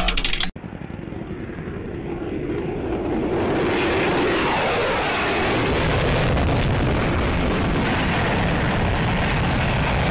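Fighter jet flying past overhead: a steady jet-engine roar that builds over the first few seconds and then holds, with a sweeping, phasing quality as the aircraft passes.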